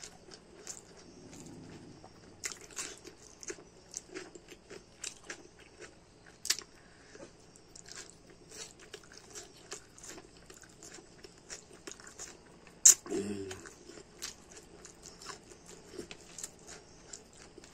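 Close-up chewing and mouth smacking of a person eating rice and curry by hand, with many small irregular wet clicks. There is one sharper, louder click about three-quarters of the way through, followed by a brief low sound.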